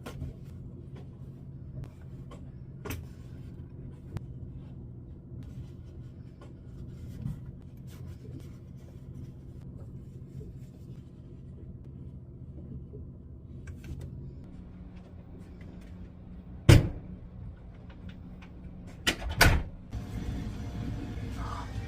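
A steady low hum with light clicks and taps scattered through it, one loud knock about 17 s in and a pair of loud knocks near the end.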